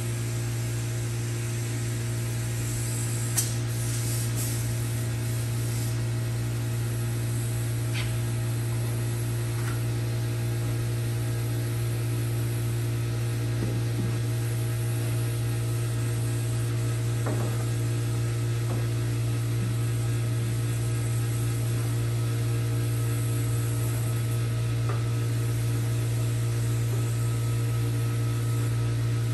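A steady low hum with several steady higher tones above it, unchanging throughout, with a few faint light knocks.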